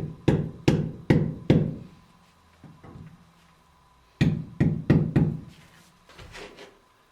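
Two runs of about five knocks each, a few tenths of a second apart, the second starting about four seconds in, with fainter knocks between: support blocks being tapped down into mortar under a fireplace insert's legs.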